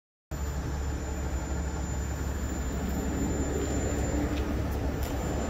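Tractor-trailer fuel tanker's diesel engine idling, a steady low rumble that starts abruptly after silence about a third of a second in, with a thin steady high whine above it.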